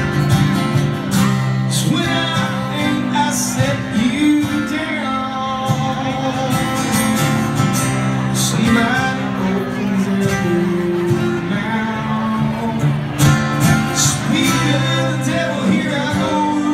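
Live country band playing, with electric guitars and drums.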